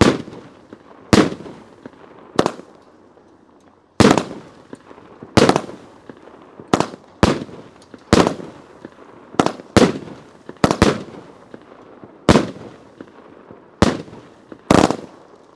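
200-gram consumer firework cake (Memory Fireworks Dakota Walleye) firing shot after shot, each aerial break a loud, sharp report. About a dozen reports come at uneven spacing, roughly one a second, with a short pause near the start.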